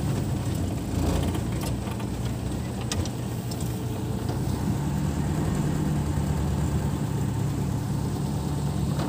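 Passenger van's engine running with a steady low hum, heard from inside the passenger cabin.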